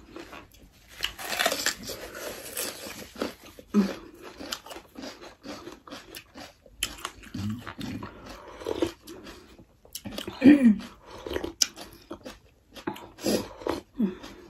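Eating sounds: crunching bites into a raw red bell pepper, chewing, and slurping of sour sinki (fermented radish) soup from a bowl, in irregular bursts. There are a few brief murmurs.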